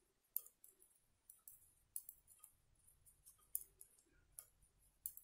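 Metal knitting needles clicking against each other as purl stitches are worked: faint, sharp clicks at irregular spacing, a few each second.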